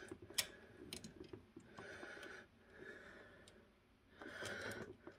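A man breathing quietly while straining in an awkward reach, three breaths a second or so apart. There are a couple of faint clicks near the start as a small machine screw and nut are fiddled into place.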